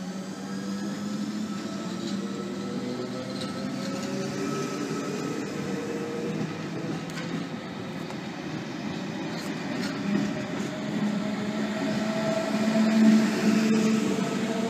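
HO scale model of a NSW double-deck V set electric train running along the track: a steady motor hum with a slowly gliding whine and a few sharp clicks of the wheels. It grows louder toward the end.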